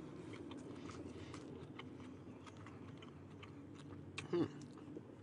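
A person chewing a mouthful of toasted deli sandwich, with many small wet mouth clicks. About four seconds in comes one brief, louder sound that falls in pitch.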